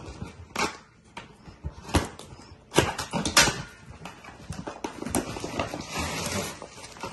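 A cardboard product box being handled and opened by hand: the cardboard scrapes and rustles, with several sharp knocks and taps. The loudest come about three seconds in.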